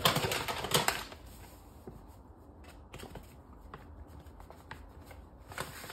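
Rustling and scraping of chapati dough being worked with a fork in a plastic bowl while flour is poured in from a paper bag: loudest in the first second, then faint scattered crackles, with another short rustle near the end.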